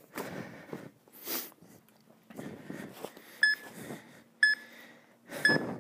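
Workout interval timer giving three short countdown beeps about a second apart, signalling the end of a rest period and the start of the next exercise. Short bursts of noise fall between the beeps.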